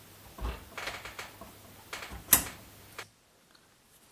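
Small plastic and metal parts of an RC helicopter rotor head clicking and tapping as they are handled and fitted together, with the sharpest click a little over two seconds in. The sound stops abruptly at about three seconds.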